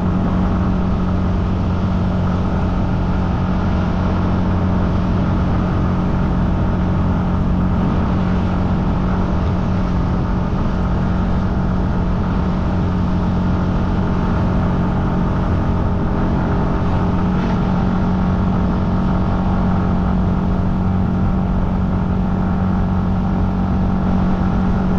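Motor scooter engine running at a steady speed while riding, an even drone that holds the same pitch throughout.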